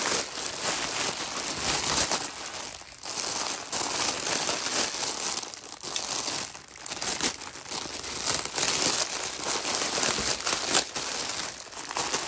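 Clear plastic bags of Beyblade tops and a bubble-wrap mailer crinkling continuously as they are handled and pulled apart, with a few brief pauses.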